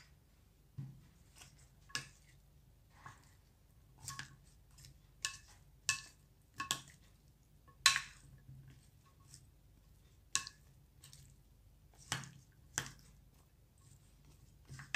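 Plastic spoon stirring and tossing diced chicken, pineapple and vegetables in a bowl. Irregular clicks and scrapes of the spoon against the bowl come about every half second to a second.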